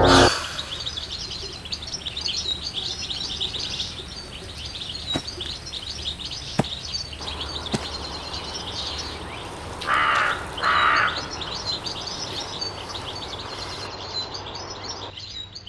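Woodland birdsong: many small birds chirping together, with two loud harsh calls about ten seconds in, a second apart, and a few faint clicks.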